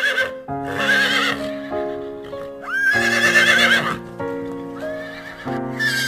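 A horse neighing several times, each whinny a high, quavering call about a second long, over background music.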